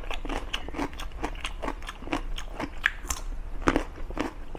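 Close-miked chewing of a mouthful of food eaten by hand: a steady run of wet mouth clicks and smacks, several a second, with now and then a light crunch.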